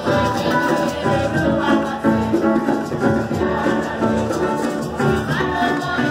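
Music played by instruments, with a steady rhythm.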